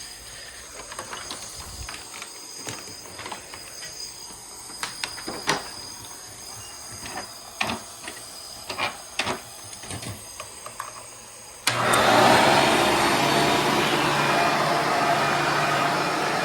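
Scattered clicks and knocks, then, about twelve seconds in, a Hoover Encore vacuum cleaner's motor switches on suddenly and runs steadily and loudly.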